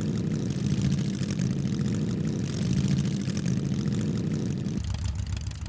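Designed speeder-bike engine sound effect built from pitched-down recordings: a steady low buzzing hum with hiss on top. About five seconds in it drops to a lower pitch as the bike decelerates.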